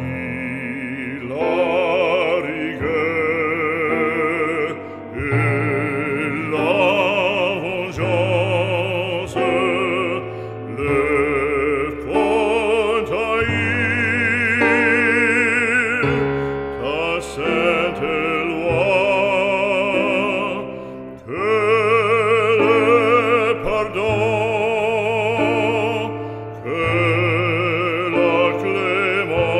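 Background music in an operatic, classical style: a melody with strong vibrato over held low notes, running continuously.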